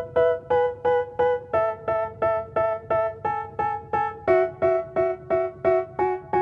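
Background music: a keyboard chord in a piano sound, struck evenly about three times a second, changing chord twice, in an instrumental break of a rap song.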